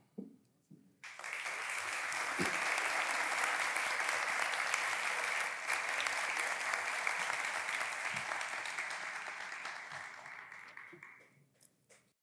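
An audience applauding, starting about a second in, holding steady and dying away near the end.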